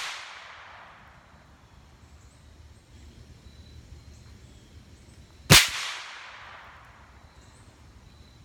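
One .308 rifle shot about five and a half seconds in, its report echoing away over a second or so. The echo of an earlier shot is still dying away at the start.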